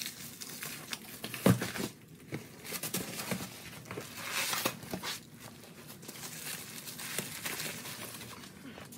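Plastic wrap crinkling and tearing as it is pulled off motorcycle wheels with tires, with one sharp thump about a second and a half in.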